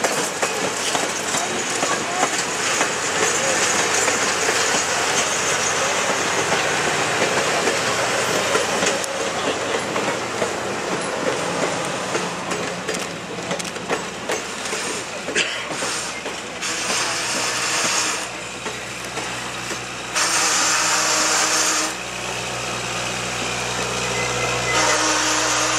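Passenger cars of a moving train rolling past at trackside, their steel wheels running steadily on the rails, with a louder stretch about twenty seconds in.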